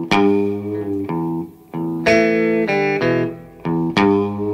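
Instrumental intro of a slow 1960s blues song: electric guitar playing chords over bass, with a strong new chord struck about every two seconds.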